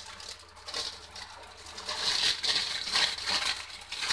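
Plastic bread wrapper crinkling and rustling in irregular bursts as hands open it and pull out a sliced loaf, loudest in the second half.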